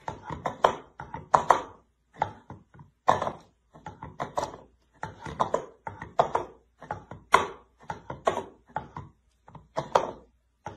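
An orange plastic bowl knocked against a hard floor again and again by a cat's front paws, giving hollow plastic knocks at an uneven rhythm, several in quick succession then a short gap.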